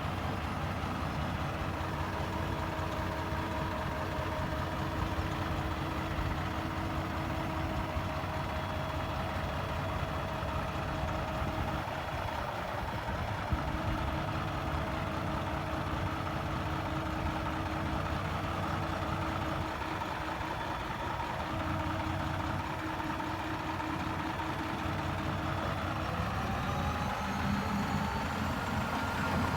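Heavy diesel engine of earthmoving equipment running steadily at low speed, rising slightly in pitch near the end.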